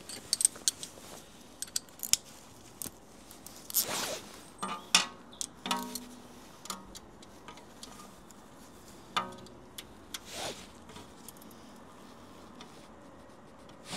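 A quarter-inch swivel-head ratchet and metal tools click and clink in irregular bursts while the bolt holding a rear ABS wheel-speed sensor is tightened by hand. There are a few short ringing notes and two soft swishes.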